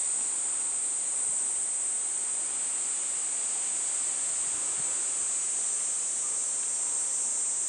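Steady, high-pitched chorus of summer insects, continuous and unbroken.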